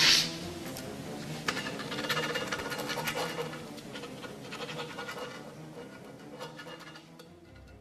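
Scratchy, crackling noise over low sustained tones, fading away over the last few seconds, with a short loud hiss right at the start.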